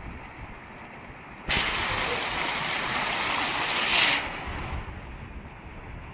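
Steady hiss of a hailstorm's rain on corrugated roofs. About a second and a half in, a much louder rushing hiss of blown water spray sets in suddenly, lasts nearly three seconds, then dies away.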